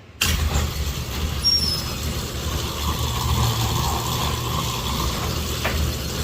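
Commercial overhead garage door operator starting suddenly and running, its motor and drive moving the large door with a steady mechanical rumble, and a sharp click near the end.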